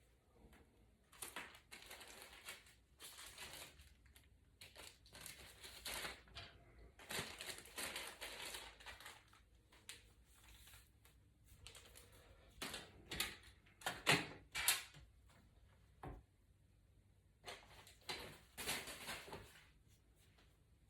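Irregular, quiet rustling and crinkling handling noises with scattered clicks, and two sharper taps about fourteen seconds in.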